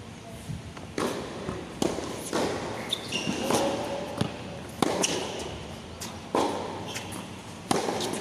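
Tennis rally on a hard court: sharp racket strikes and ball bounces about every second, echoing under a large roof, with a few short high squeaks in between.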